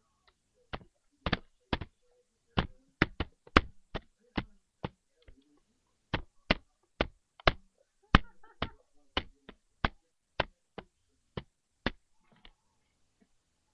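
A baby's hands slapping a hard surface close to the microphone: a run of sharp taps and knocks, about two a second at an uneven pace, stopping about a second before the end.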